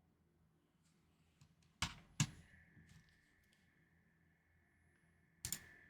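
Mostly near silence with a few isolated sharp clacks from an NK65SE mechanical keyboard with lubed and filmed Gateron Milky Yellow switches: two keystrokes close together about two seconds in, and one more near the end.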